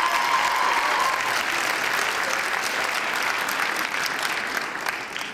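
Audience applauding, with a long cheer over the first second; the clapping thins out near the end.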